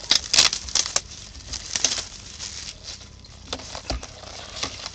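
Foil wrapper of a 2014 Bowman Jumbo baseball card pack crinkling and rustling as it is opened and the cards are handled. The rustles are busiest in the first second, then come as scattered short crinkles and taps.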